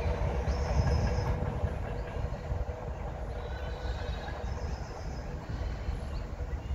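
Freight train wagons rolling past on the track: a steady rumble of wheels on rail with two brief high wheel squeals, about half a second in and again about four and a half seconds in, growing quieter after the first couple of seconds.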